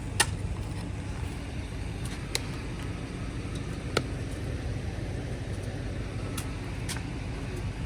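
The engine of the digging machinery running steadily in a low drone, with a few sharp clicks or knocks over it.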